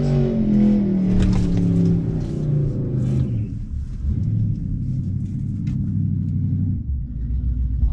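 A combustion car engine held at high revs, its pitch sliding slowly down and fading over the first two to three seconds as the car pulls away down the drag strip, followed by a low steady rumble.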